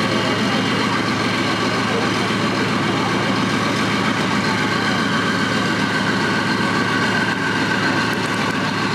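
Diesel engine of a Leguan bridge-laying tank (Leopard 2 chassis, MTU V12) idling steadily, with indistinct voices of people around it.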